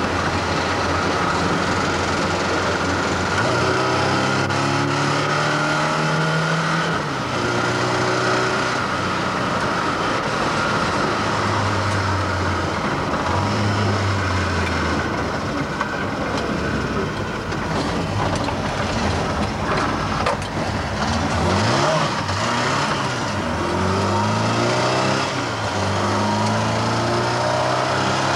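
Mk1 Ford Escort RS2000's four-cylinder engine heard from inside its stripped cabin, revving up and dropping back several times as the car is driven and shifted through the gears.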